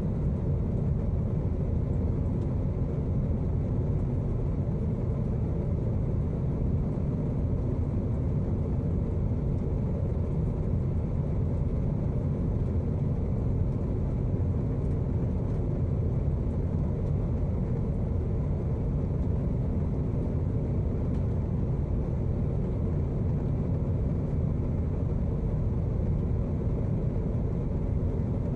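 Airliner cabin noise in flight: a steady, low rumble that does not change.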